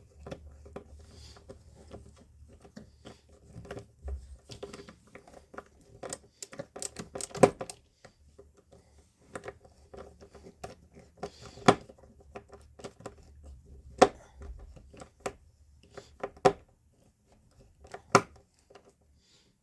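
Small screw being driven by hand with a screwdriver through a plastic spacer into wood, with scattered clicks and knocks of the driver and parts, the sharpest coming every two to three seconds.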